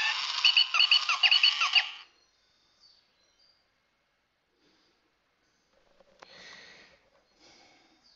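Program a bot toy robot's speaker playing a burst of electronic bleeps and chirps for about two seconds, in reply to a button press on its back. Faint handling noises follow near the end.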